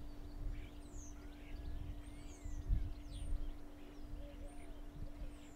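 Outdoor ambience: scattered faint bird chirps and twitters over a low rumble, with a steady low hum underneath.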